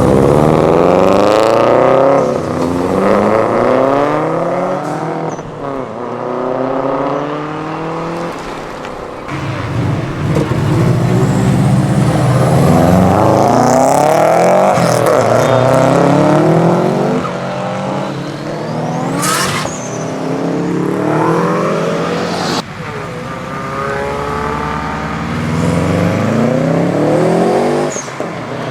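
Subaru Impreza flat-four boxer engines accelerating hard. The revs climb repeatedly and drop back at each gear change, over a series of short clips.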